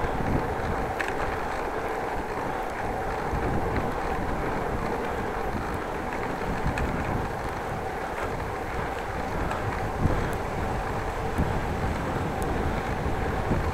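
Riding noise of a bicycle at speed: steady wind rush on the microphone over the tyres rolling on the road, with a faint steady hum running through it and one small knock about ten seconds in.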